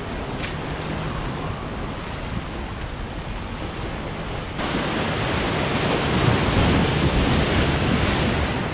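Ocean surf washing and breaking against the boulders of a rock jetty, with wind on the microphone. A brief click just after the start; the surf becomes suddenly louder about halfway through.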